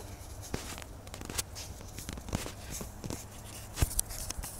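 A puppy digging and nosing in shallow snow: quiet, irregular crunches and scrapes, with a few sharper clicks.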